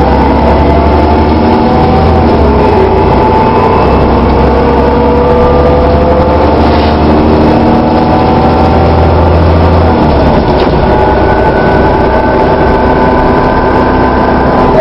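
Dennis Trident double-decker bus running: a deep engine drone with several whining tones above it that slowly rise and fall, the strange sound this bus makes. The deep drone eases about ten seconds in.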